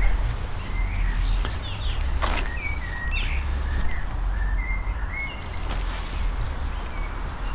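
Small birds chirping: a string of short, repeated chirps over a steady low rumble.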